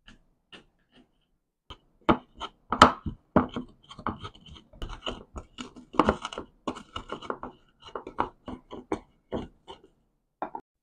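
Stone pestle crushing garlic cloves and dried shrimp in a terracotta mortar: a quick run of crunching knocks, about three a second, starting after a couple of soft taps, as the spices are ground to a paste.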